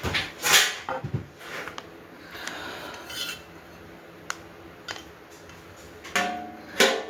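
Metal grill parts and hardware clanking and clinking as they are handled and fitted during assembly: a string of sharp knocks and jingles, loudest about half a second in, with another loud clank near the end.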